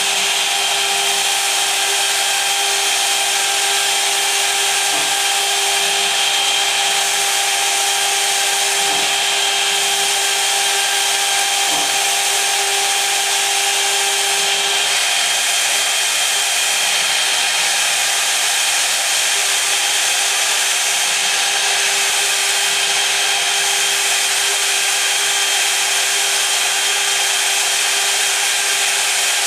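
High-frequency spindle of a MillStep PA1050 CNC engraving machine running a 60° engraving cutter through a plastic sheet, engraving lettering at high feed. A steady whine with a few held tones under a loud, even hiss.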